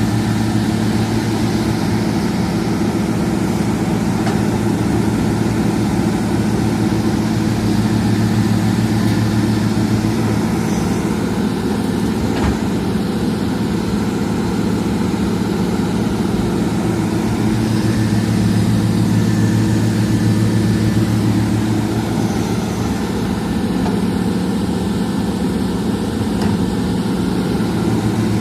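Excavator's diesel engine running steadily, a deep even drone with no change in pace.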